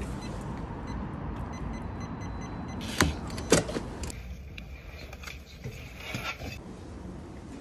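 Front door with an electronic smart lock being opened and shut: a faint run of short high beeps, then two sharp clicks about three seconds in, over steady handling noise.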